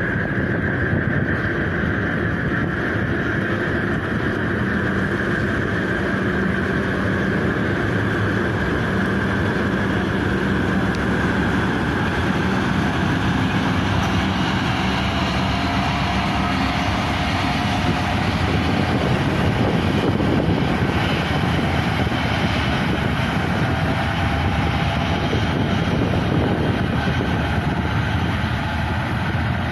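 A large passenger ferry's engines running hard under full throttle as it pulls away. The sound is a steady, loud mechanical drone with a low hum and churning water from the propellers, and a high whine that fades over the first ten seconds or so.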